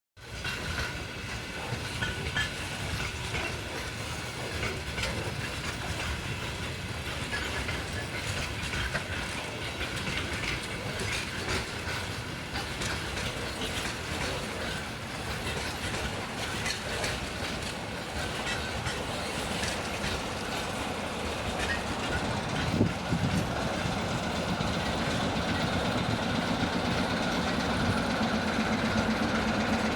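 Steel train wheels clattering over rail joints in a running clickety-clack. Late on there is a single thump, after which a steady low hum takes over from the clatter.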